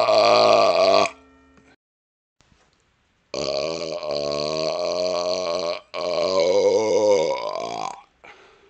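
A man burping. A long burp cuts off about a second in, and after a two-second pause come two more long burps back to back, the last one rising in pitch as it ends.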